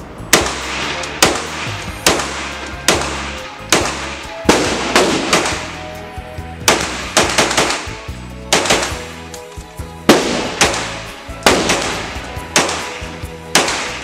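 CZ Scorpion EVO carbine fired shot by shot in an indoor range: about twenty sharp reports, mostly under a second apart with some quick doubles and triples, each ringing off the range walls. Background music plays underneath.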